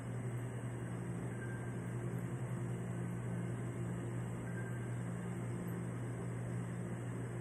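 Steady low machine hum that does not change.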